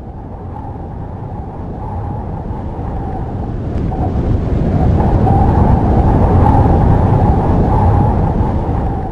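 A deep rushing, rumbling noise that swells steadily louder for several seconds and falls away near the end.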